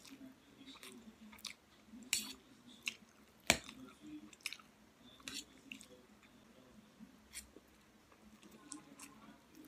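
Close-miked chewing of a mouthful of noodles, with scattered wet mouth clicks and smacks. One sharp click stands out about three and a half seconds in.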